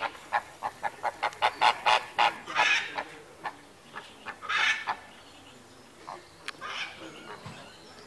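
Flock of flamingos honking, with goose-like calls: a quick run of short calls, about four a second, for the first two seconds or so, then a few longer calls and scattered single ones.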